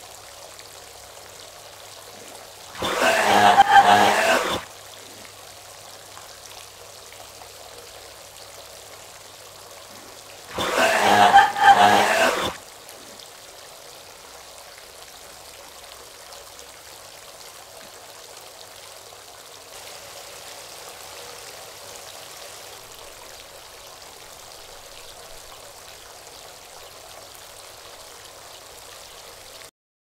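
Faint steady trickling of bathwater with a low hum underneath, broken twice by a loud sound of about two seconds, once near the start and once about eleven seconds in.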